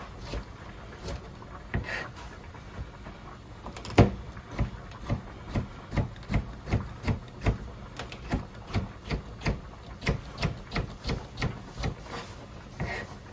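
Kitchen knife chopping on a cutting board: scattered knocks at first, then from about four seconds in a steady run of about two to three chops a second, the first one the loudest.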